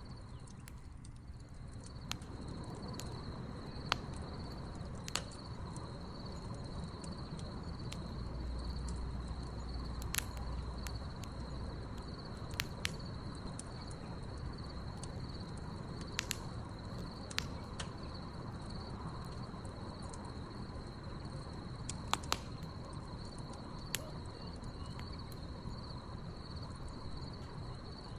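Wood fire crackling with sharp, irregular pops over a steady, high trill of crickets chirping.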